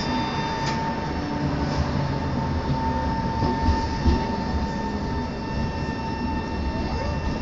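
Tram running along the street, heard from inside the car: a steady low rumble of wheels on rail under a constant high whine, with a couple of brief knocks about halfway through.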